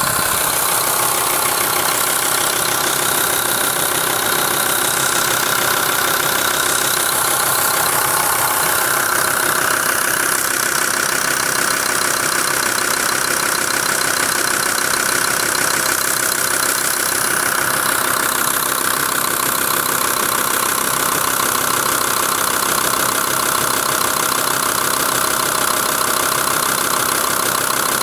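Volkswagen LT 35's 2.5 TDI five-cylinder diesel engine running steadily with a repeating knock. The owner thinks the knock comes from the top of the engine near the valve cover, possibly an injector.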